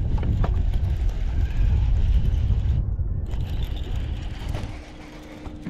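Fishing reel being cranked while a hooked bass is fought, over a heavy low rumble. The rumble drops away near the end, leaving a faint steady hum.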